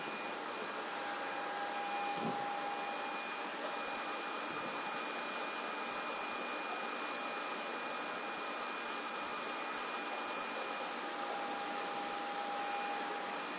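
Steady hiss with a constant high-pitched whine, the running noise of aquarium equipment such as pumps and fans.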